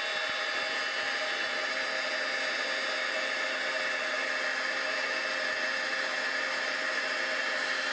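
Embossing heat gun running steadily, blowing hot air on embossing powder on a paper snowflake to melt it: an even motor whir with a constant hum and airy hiss.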